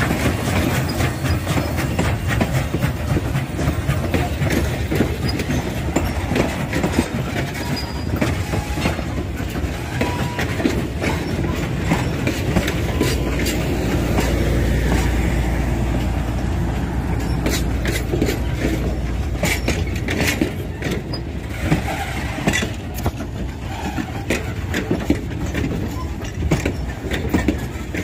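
Canadian National 7470 steam locomotive and its passenger coaches rolling past close by. Rumbling throughout, with the wheels clicking and clanking over the rail joints, the clicks coming thicker in the second half.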